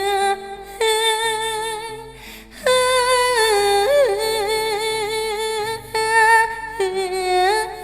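Music: a Thai song with a singer holding long, wavering wordless notes over soft sustained backing chords, in three phrases.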